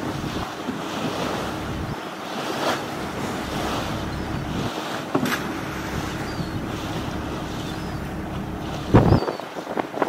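A lobster boat under way: steady wind on the microphone over the engine's hum and the rush of sea water along the hull. A few short knocks come from wire lobster traps being slid along the rail and off the stern, with a heavier thump about nine seconds in.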